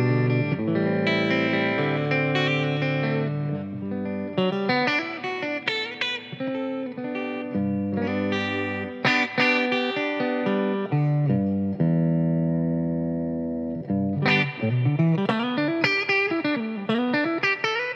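Squier Telecaster Cabronita electric guitar played through an amp on a soft clean tone with delay and reverb, ringing chords and sustained single notes. Near the end the notes slide up and down in pitch.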